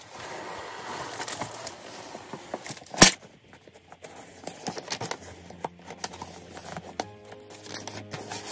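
Handling noise from a cardboard box and a paper instruction leaflet: rustling with small clicks, and one sharp knock about three seconds in that is the loudest sound. Soft background music comes in about five seconds in.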